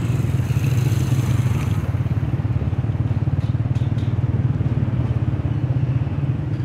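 Motorcycle engine running steadily underway with fast, even firing pulses, amid street traffic.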